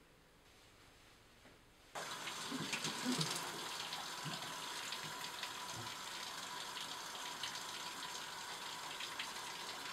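Bathtub faucet running, water pouring from the spout into the tub; the steady rush starts abruptly about two seconds in.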